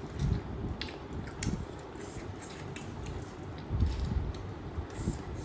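A person chewing and biting duck meat close to the microphone: irregular soft mouth sounds with scattered small clicks.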